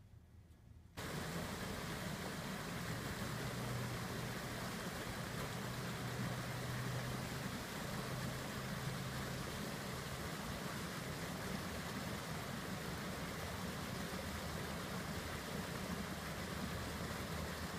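A small rock waterfall pouring into a pond: a steady rush of splashing water with a low, steady hum beneath it, starting abruptly about a second in.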